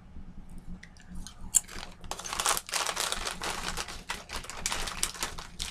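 Crunching of kettle-cooked sweet potato chips being bitten and chewed close to the microphone: a sharp crack about a second and a half in, then dense, irregular crackling.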